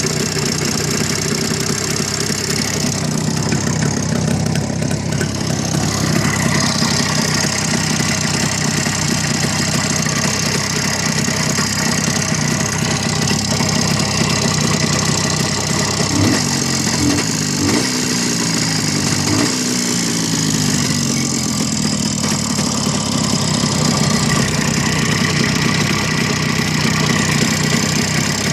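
Jawa 634's two-stroke twin engine idling steadily, blipped up and back down a few times in quick succession about two-thirds of the way through, then settling back to idle. The owner hears a knock from the engine at idle after the throttle is closed.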